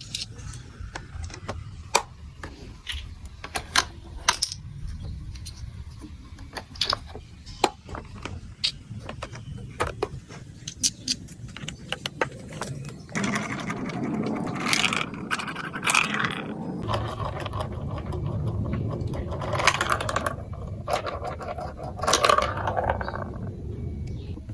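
Hard plastic marble run pieces clicking and tapping, with scattered sharp clicks at first. From about halfway a louder, continuous rattling and rolling sets in, with brighter clatters on top.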